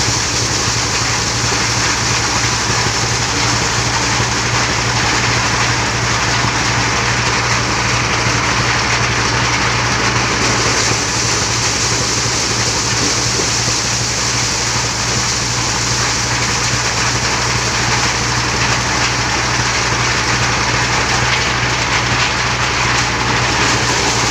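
Motorised corn sheller running steadily, driven by belt from a small stationary engine: a steady engine hum under a continuous dense rattle of corn cobs being threshed and kernels spraying out.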